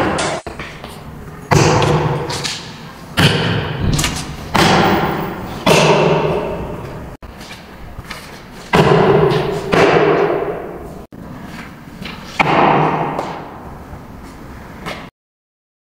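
A series of about eight heavy thuds, each starting sharply and ringing out for a second or so before the next. The sound cuts off abruptly near the end.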